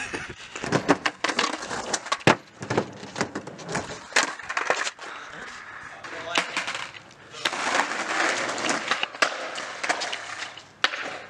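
Skateboard on rough pavement: many sharp clacks of the board popping and landing in the first half, then a longer stretch of wheels rolling, and one more sharp clack near the end.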